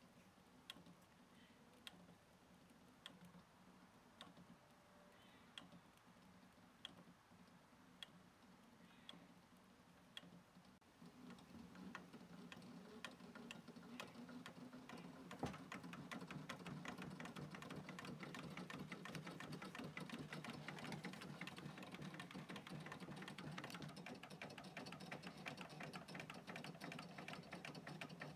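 Antique Märklin toy hot air engines running. At first there is a light tick about once a second. About a third of the way in, a louder, rapid, continuous mechanical clicking and clatter from the running engines' linkages takes over.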